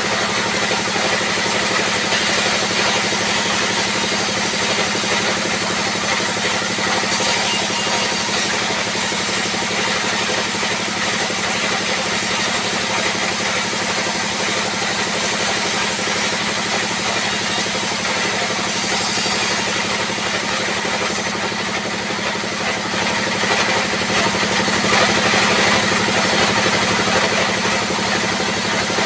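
Sawmill circular saw bench running steadily while boards are ripped lengthwise on it. A constant machine drone runs throughout, with the cutting noise swelling and easing as each board is pushed through the blade.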